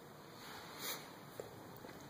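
Faint room hiss with a brief scuffing swish about a second in and a small click soon after: footstep and handling noise from someone walking with a handheld camera across a tiled floor.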